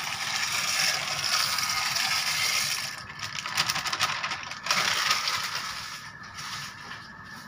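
Dry elbow macaroni poured from a plastic bag into a pot of boiling broth, a steady rattling hiss. About three seconds in the pour breaks up into crackles and crinkling as the bag is shaken out, and from about six seconds only the softer bubbling of the broth is left.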